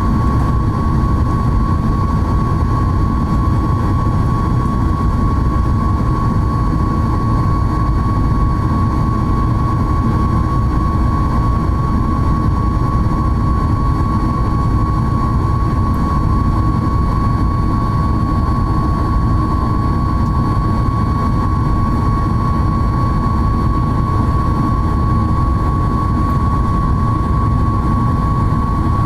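Boeing 737 MAX 8 at cruise heard from inside the cabin: the CFM LEAP-1B engines and airflow give a loud, steady roar with a clear, unchanging high-pitched tone above it.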